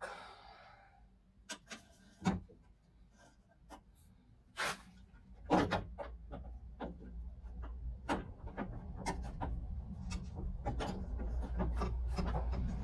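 Scattered clicks, knocks and rubbing of hands and small metal parts being worked inside a car door's inner metal panel, with a few sharp knocks in the first half. From about halfway a low rumble builds beneath a dense run of small ticks.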